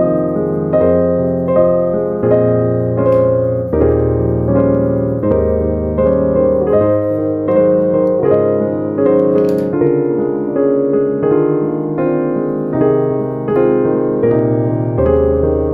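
Background piano music: a gentle, steady melody of repeated notes.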